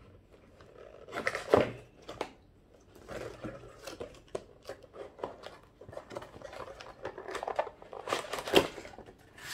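A cardboard toy box being pulled and torn open by hand: irregular rustling, crinkling and tearing of the packaging, louder about a second and a half in and again near the end.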